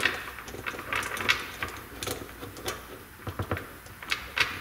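Scattered small clicks and taps of a socket and metal parts as a nut is worked off a Wi-Fi camera's mount, irregular rather than a steady ratchet rhythm, with the sharpest click right at the start.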